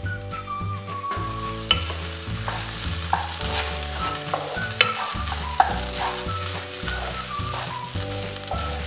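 Wooden spatula stirring and scraping cooked rava upma in a nonstick pan still on the heat, with a soft sizzle and a few sharp knocks of the spatula against the pan. Background music plays underneath.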